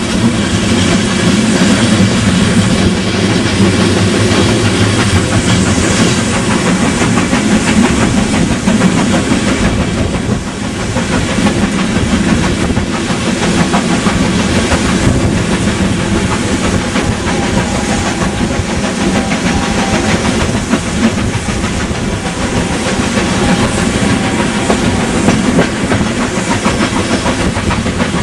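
A train running along the track with a loud, steady rumble.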